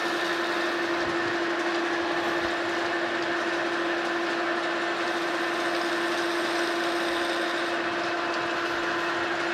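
Metal lathe running steadily under power, spinning a steel shaft: an even machine hum with a steady whine.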